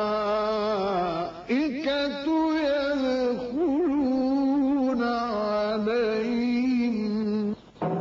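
A man's voice reciting the Quran in the melodic mujawwad style, drawing out long notes with wavering, ornamented pitch. Short breaks for breath, with a brief pause near the end.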